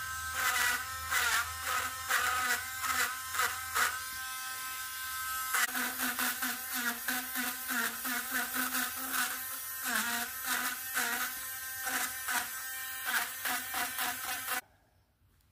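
Harbor Freight Drill Master rotary tool running at high speed, its small engraving bit grinding into oak with a constant scratchy rasp over the motor's whine. The whine dips in pitch now and then, and the tool switches off suddenly near the end.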